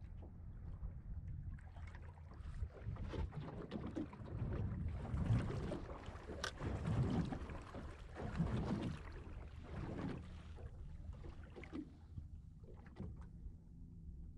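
Water lapping and slapping against the hull of a small boat, uneven and strongest in the middle. Under it runs a faint, steady low hum from the electric trolling motor holding the boat in place.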